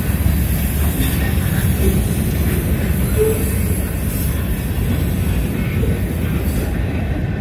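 Freight cars of a long freight train rolling past: a loud, steady rumble of steel wheels on the rails.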